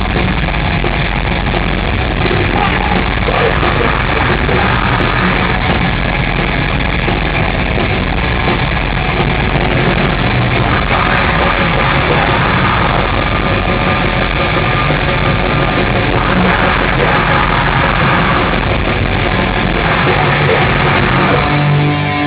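Heavy rock band playing loud and dense live, with distorted guitars, bass and drums and some yelled vocals. Near the end the low end drops away.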